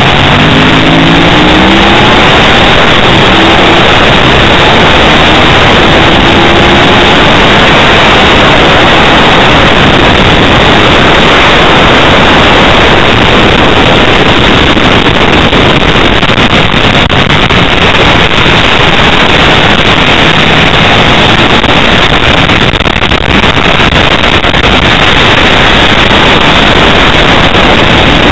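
Ducati 888 90° V-twin racing motorcycle at speed, heard through an onboard camera's microphone as a loud, distorted, steady roar of engine and wind rush. The engine note rises through the revs at the start and again near the end.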